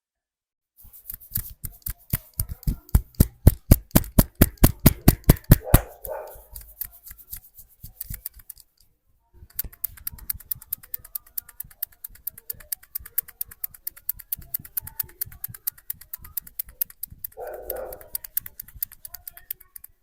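Hands striking rapidly and rhythmically in a percussive head massage, several strikes a second, loud at first and softer after a short pause. A short vocal sound comes twice.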